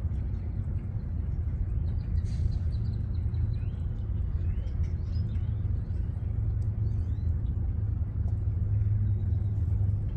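Steady low outdoor rumble, with faint short bird chirps now and then.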